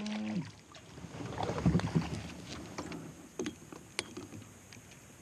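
Water splashing with scattered knocks and clicks around a kayak as a small smallmouth bass is brought in and landed. A short held voice-like sound comes right at the start.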